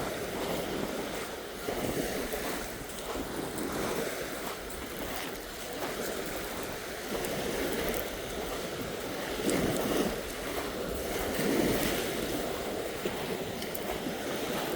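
Small waves washing onto a rocky shore, swelling and ebbing every few seconds, with wind rumbling on the microphone.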